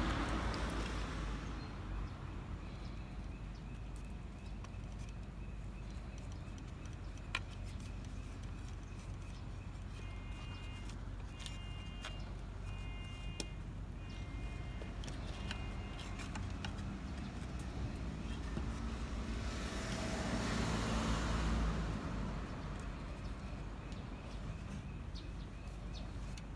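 Steady hum of road traffic that swells at the start and again about two-thirds of the way in as vehicles pass, with a few light knocks as the wooden bucksaw frame is handled.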